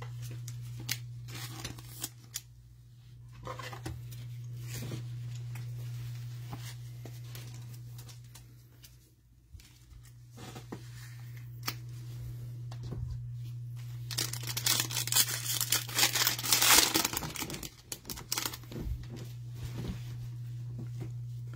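Trading cards and a clear plastic card sleeve rustling and crinkling in nitrile-gloved hands as a card is slid into the sleeve, with scattered soft clicks. A denser stretch of crinkling runs from about fourteen to seventeen seconds in.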